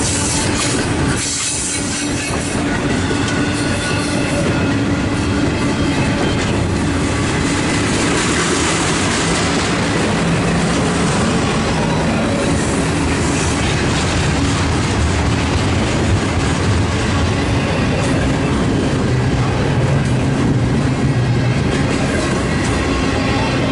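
Double-stack intermodal freight train rolling past close by: a loud, steady rumble and clatter of its well cars' wheels on the rails.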